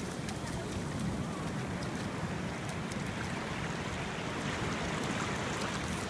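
Small waves washing up on a sandy beach: a steady rush of surf with wind rumbling on the microphone.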